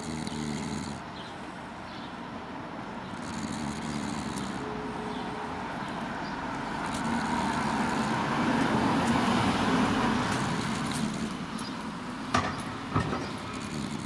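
Street traffic: a vehicle passes, growing louder to a peak a little after the middle and then fading, with two sharp knocks near the end.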